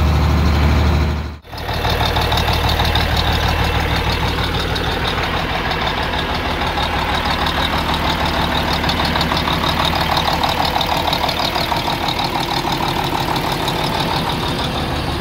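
Case 2470 tractor's six-cylinder diesel engine running steadily. The sound cuts out abruptly about a second and a half in, then the engine carries on with a quicker, pulsing beat.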